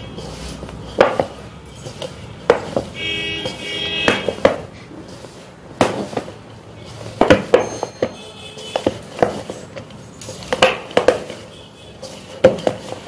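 Hands kneading crumbly flour dough in a steel bowl, with irregular sharp knocks and scrapes against the bowl. A steady pitched buzzing tone sounds twice, about three seconds in and again near eight and a half seconds.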